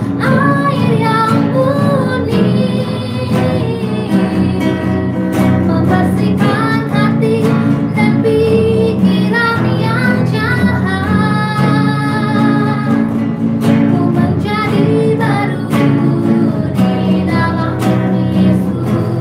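A woman singing an Indonesian worship song, with guitar accompaniment. Her voice carries a melody with held, wavering notes.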